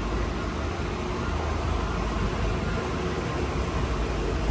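Steady low rumble and airy hiss of background noise, with no distinct events.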